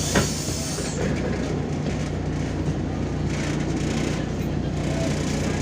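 Interior noise of a MAZ-203 city bus under way: a steady low drivetrain hum with road noise. There is a single knock just after the start, and a high hiss fades out about a second in.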